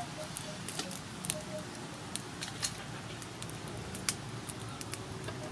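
Burning charcoal in a clay stove crackling, with scattered sharp pops at irregular intervals.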